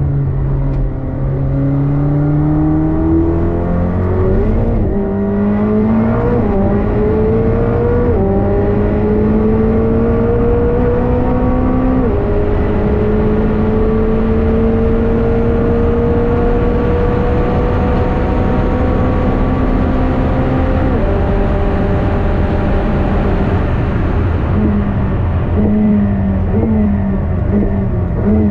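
McLaren 765LT's twin-turbo V8 heard onboard under hard acceleration, the revs climbing and dropping at quick upshifts about four, six, eight and twelve seconds in. It then pulls slowly and steadily in a high gear for about nine seconds. Near the end the revs fall and jump up and down as the car brakes and downshifts.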